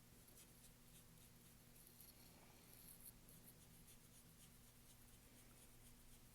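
Faint scratching of a paintbrush stroking acrylic paint onto canvas, in short repeated strokes over a low steady hum.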